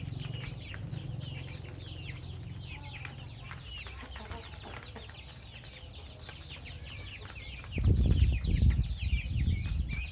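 Many young chicks peeping continuously, short high chirps overlapping several times a second. About eight seconds in, a loud low rumble comes in and stays until the end.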